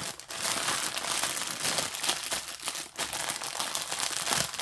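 Plastic packaging crinkling and rustling continuously as it is handled and closed up, with many small crackles.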